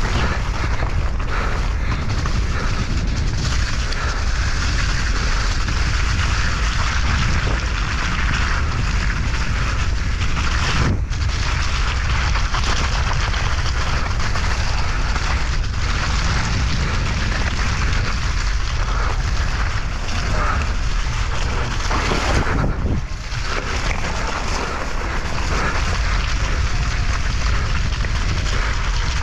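Steady, loud wind rush buffeting the microphone, with three brief dips in level.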